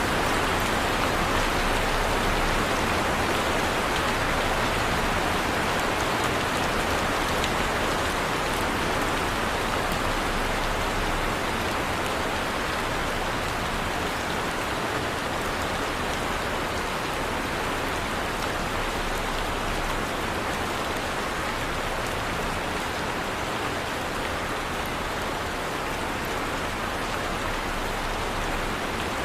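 Heavy rain falling steadily, an even rushing hiss of many drops with no let-up.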